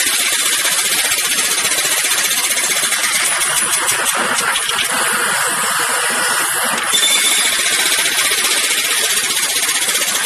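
Jackhammer hammering without pause, a dense rapid pounding with a bright hissing edge. The tone shifts and grows slightly louder about seven seconds in.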